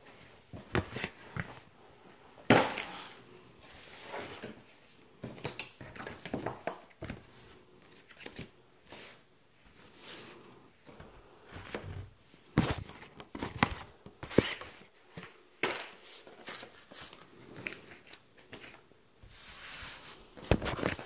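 Paper sticker sheets and their plastic and paper packaging being handled: irregular rustling and crinkling with small clicks, the loudest about two and a half seconds in.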